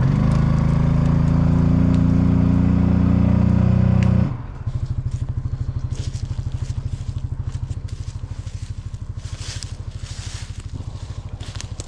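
Coleman UT400 UTV engine held at high revs under load for about four seconds as it backs up pulling a tree on a winch line, then dropping suddenly to a steady idle. Scattered crackling and scraping sounds come over the idle.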